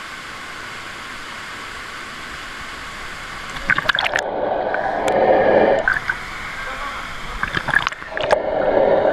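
Swimming-pool water splashing and gurgling, heard with the microphone at and under the surface: a steady wash of noise, then splashes about four seconds in as it goes under, a muffled underwater gurgle with the high sounds cut off, and more splashes around eight seconds in as it breaks the surface.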